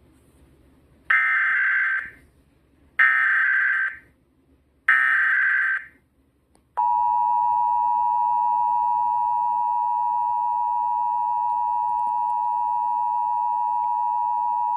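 Emergency Alert System test on a Sangean HDR-14 radio: three short bursts of the warbling digital SAME header, each about a second long, then the steady two-tone EAS attention signal from about seven seconds in, held unbroken for about eight seconds. These tones open the North Carolina Required Monthly Test.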